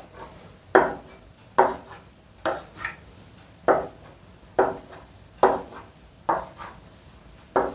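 Chalk on a chalkboard drawing a run of short marks, about one a second. Each is a sharp tap of the chalk followed by a brief scrape as a small L-shaped corner mark is drawn.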